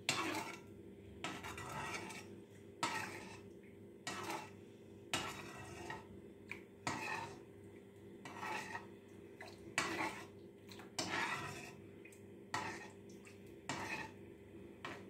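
Metal spoon scraping and clinking against a frying pan, stirring hot milk to dissolve sugar, in short strokes about once a second.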